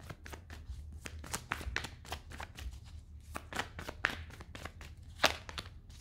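A deck of tarot cards being shuffled by hand: a quick, irregular patter of soft card slaps and flicks, with one sharper snap a little after five seconds in.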